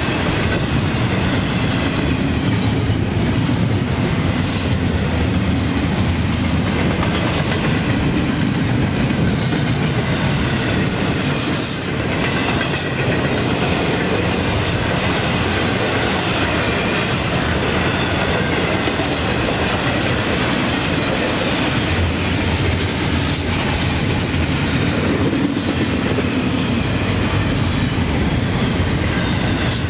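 Florida East Coast Railway double-stack intermodal freight train rolling past at steady speed: a constant rumble of the container well cars, with wheels clicking over the rail joints. Light wheel squeal comes and goes, with a brief high squeal about twelve seconds in.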